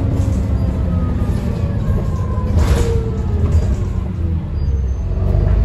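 Optare Olympus Trident double-decker bus driving, heard from the upper deck: a steady low engine drone with faint gliding drivetrain whine. There is a short rattle or knock about two and a half seconds in, and the engine note grows stronger near the end as the bus pulls harder.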